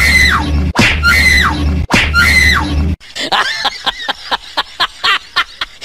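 Shrill cries: three long cries, each falling in pitch, about a second apart, then a fast run of short, sharp yelping cries for the last few seconds.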